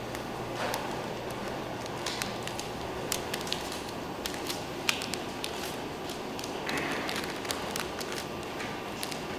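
Scattered light clicks and taps of hand work over a steady background hiss, with one sharper click a little under five seconds in.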